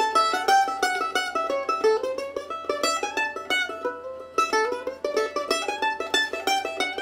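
Mandolin played solo: a fast run of single picked notes, with a brief break about four seconds in.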